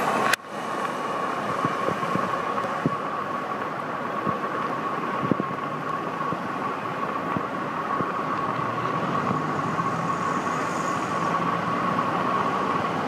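Steady road traffic noise with a thin, steady high tone under it. There is a sharp click about half a second in.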